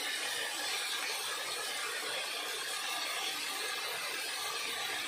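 Steady hiss of chopped vegetables steaming and sizzling in a stainless steel pot on the stove.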